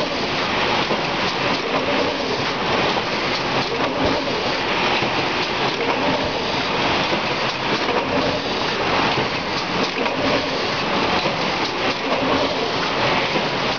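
Industrial cutting machine running: a steady, dense hiss with a fine crackle that does not change.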